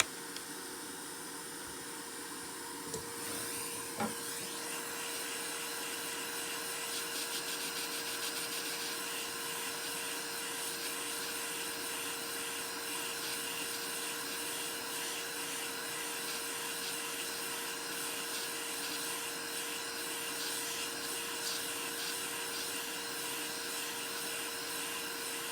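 A small electric motor or blower runs steadily with an airy hiss, starting about three seconds in; a sharp tap comes just after it starts.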